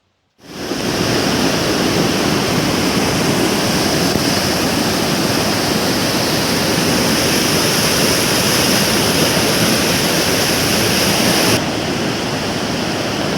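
Waterfall's water pouring: a loud, steady rush. About twelve seconds in it drops slightly and loses some of its hiss.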